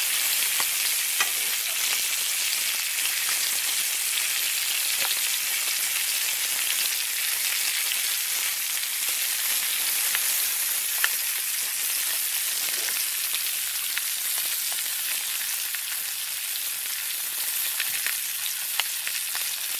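Italian sausages with onions and green peppers sizzling steadily in a cast iron skillet over a wood fire, with a few small pops scattered through.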